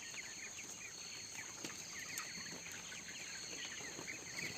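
A large flock of 22-day-old chickens peeping and chirping, many short calls overlapping, over a steady high-pitched hum.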